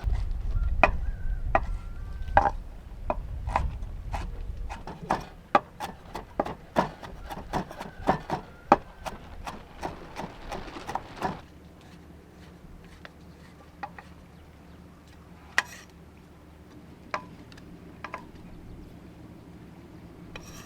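A run of sharp, irregular knocks, about two a second, for roughly the first eleven seconds, then only a few scattered ones.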